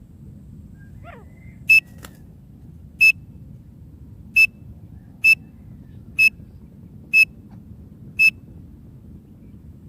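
Francolin (teetar) call used as a hunting lure: seven short, sharp, high-pitched notes at uneven intervals of about a second, over a faint low steady rumble.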